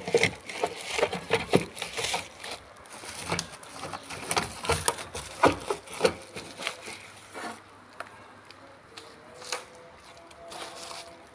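Plastic bubble wrap crinkling and rustling as hands pull it off, in dense crackles for about the first seven seconds, then thinning to a few scattered crackles.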